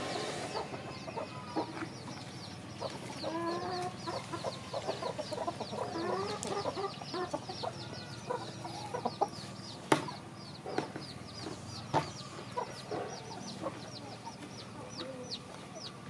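Chickens clucking off to the side, over a high, rapid chirping, with a few sharp clicks about ten and twelve seconds in.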